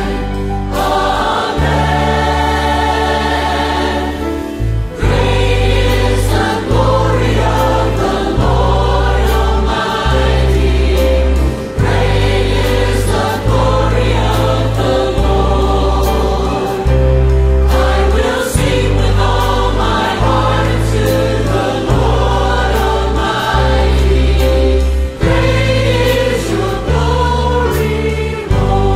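Mixed choir of men and women singing a contemporary worship song, backed by drums, electric guitar, piano and deep bass notes that change every second or two.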